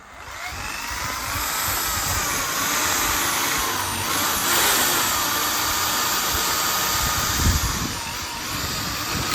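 Electric drill running under load, boring through a polycarbonate sheet and the metal frame of an excavator cab. Its motor whine wavers in pitch as the bit bites.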